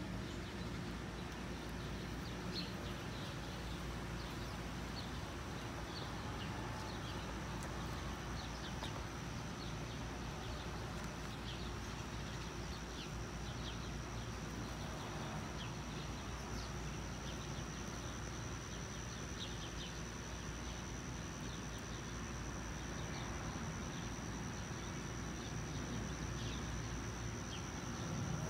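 Outdoor summer ambience: a steady high-pitched insect trill that grows a little louder in the second half, with scattered short bird chirps over a low background rumble.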